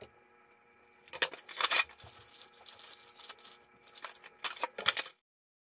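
Clear plastic bag of small parts crinkling and rustling as it is handled, together with cardboard box handling; sharp crackly rustles about a second in and again near the end, cutting off suddenly.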